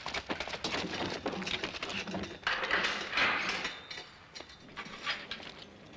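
A scuffle of movement: shuffling, rustling and scattered knocks, with a louder rush of noise about halfway through.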